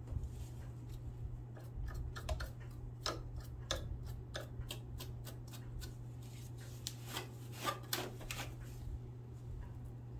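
Irregular small clicks and rubbing from a Singer sewing machine's mechanism being turned and handled by hand to check that its parts still move freely, over a steady low hum.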